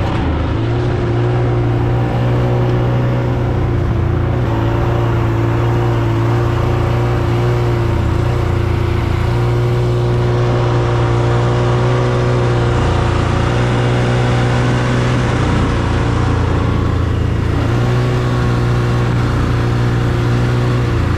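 Vehicle engine running steadily, its drone holding a pitch and shifting every few seconds.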